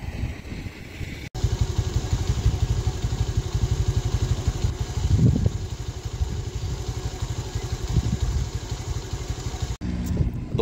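Wind buffeting the microphone: a loud, fluttering low rumble that cuts in abruptly about a second in and cuts off just before the end.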